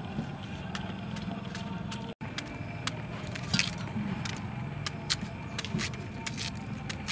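Knives cutting chunks of melon over a stainless steel bowl, with irregular light clicks and taps as blades and pieces hit the metal, over a steady low hum.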